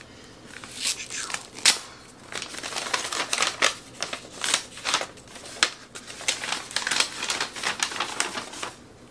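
Brown paper wrapping being torn open and crumpled by hand around a book, in quick irregular crinkling crackles with one sharp loud crackle about a second and a half in.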